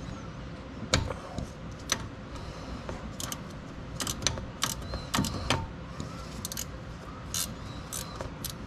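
Metal hand tool clinking and knocking against bolts and brackets under a car engine while the power steering belt is being loosened. About a dozen short, sharp clinks come at irregular intervals, the loudest about a second in and just before two seconds.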